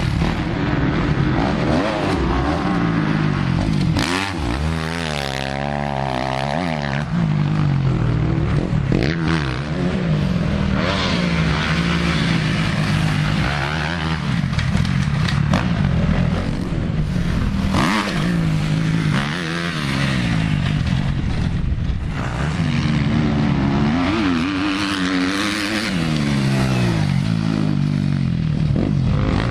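Motocross dirt bike engines revving, the pitch climbing and dropping again and again with throttle and gear changes as bikes ride past.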